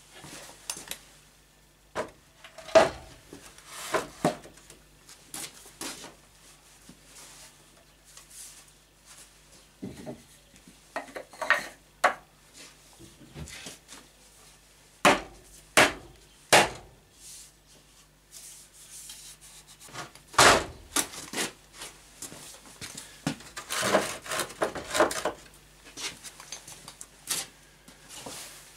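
Irregular wooden knocks and thumps as heavy oak beams are handled and the two halves of a keyed scarf joint are set together, with a few sharp louder knocks among lighter taps and scrapes.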